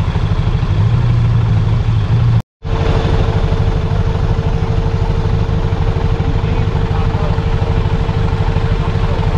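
Off-road 4x4 engine running steadily with a fast, even low throb. The sound cuts out briefly about two and a half seconds in, then returns with a steady whine added over the engine.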